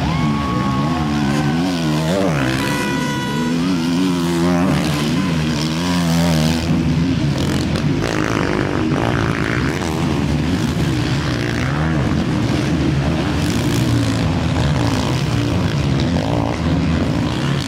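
Several 450cc four-stroke motocross bikes racing through rutted turns, their engines revving hard and rising and falling in pitch as the riders get on and off the throttle.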